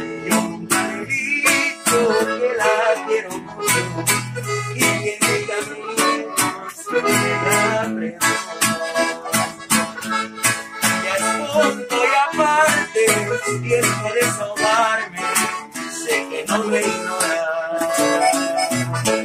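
Instrumental music with a steady beat and a melody line over it.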